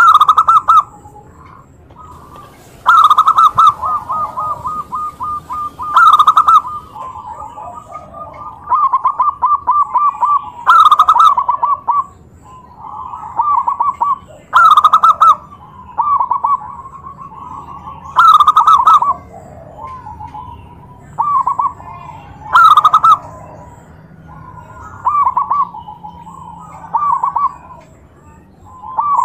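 Zebra dove (perkutut) singing: repeated phrases of rapid, rolling staccato coos, each opening with a louder note and recurring every few seconds, with quieter phrases in between. This is the song that provokes rival zebra doves to answer.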